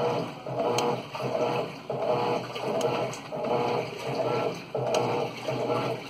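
Electrolux LM06 top-loading washing machine running, a humming whir that rises and falls about every two-thirds of a second, typical of the agitator swinging back and forth.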